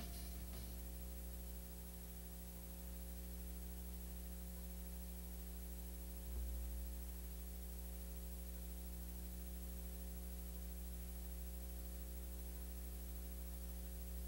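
Steady electrical mains hum with a faint hiss, on a blank stretch after the music has ended. There is a brief low bump about six seconds in.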